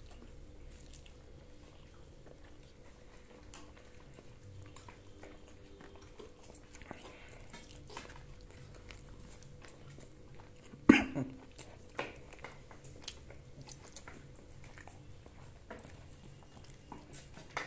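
Quiet eating sounds: faint chewing and small scattered clicks of hands and cutlery on plates. A single sharp, loud sound comes about eleven seconds in, and a smaller one a second later.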